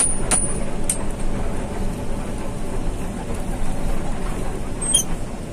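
Inside a Mitsubishi-engined bus: steady engine and road rumble, with a few light clicks and rattles in the first second.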